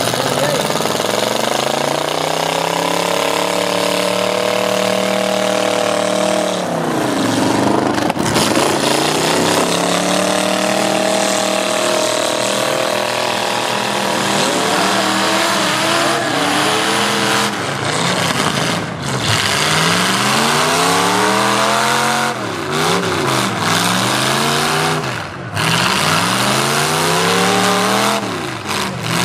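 Demolition derby car engines revving hard, their pitch climbing and falling over and over as the cars back up and ram one another. There is a deep drop in revs about seven seconds in and several quick swoops near the end.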